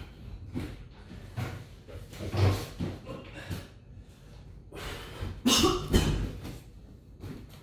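Scattered knocks and rustles of someone moving about off to the side. The loudest clatter comes about five and a half seconds in, as a milk carton and a cup are set down on a leather office chair.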